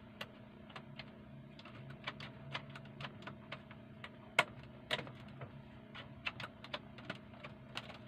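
Irregular small clicks and taps of a hand handling the opened radio-cassette's chassis, wires and parts, over a faint steady hum, with one sharper click near the middle.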